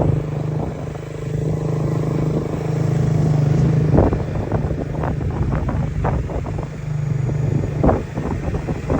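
Motorcycle engine running steadily at a low drone, with irregular knocks and buffeting in the second half.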